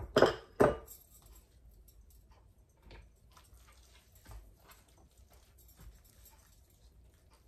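Hands rubbing seasoning into a raw tomahawk steak and shifting it on a wooden cutting board: faint soft rubbing and small clicks, after two sharp knocks in the first second.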